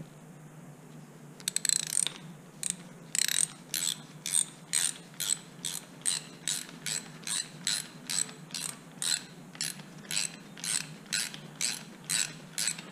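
Hand socket ratchet on a long extension bar clicking as it is worked in short strokes: a quick run of clicks about a second and a half in, then short bursts of ratcheting about twice a second that stop just before the end.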